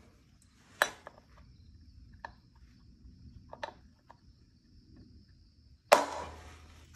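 Steel hammer striking a socket extension to drive a pilot bushing into the end of an engine's crankshaft. There is a sharp metallic strike about a second in, and a harder one near the end that rings briefly.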